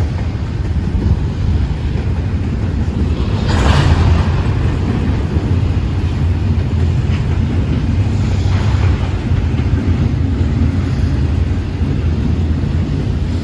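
Intermodal freight train rolling past, a steady low rumble, with a brief louder rush of noise about four seconds in.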